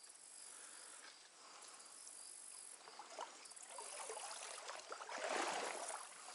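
Crickets chirping in pulsing trains, with a louder rush of water splashing swelling about five seconds in.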